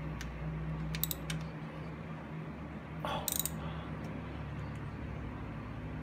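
Quarter-inch ratchet and open-end wrench working fasteners on a Harley-Davidson transmission: a few scattered metal clicks about a second in and a short cluster of ratchet clicks around the middle, as bolts are checked for tightness, over a steady low hum.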